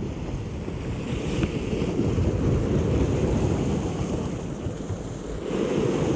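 Sea waves washing against a rocky shore, with wind buffeting the microphone; a wave surges louder near the end.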